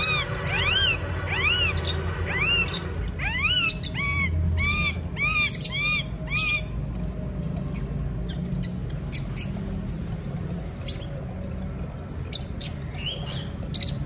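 Indian ringneck parakeets calling: a fast run of repeated sharp squawks, each rising and falling in pitch, for about the first six and a half seconds, then only scattered short chirps.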